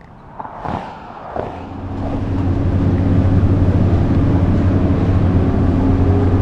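City bus engine running steadily, heard from inside the passenger cabin, its drone rising slightly in pitch near the end. A few short knocks come just before the drone sets in.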